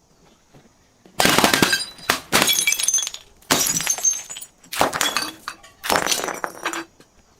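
Glass breaking and crunching: five separate crushes about a second apart, each with tinkling fragments, after about a second of quiet.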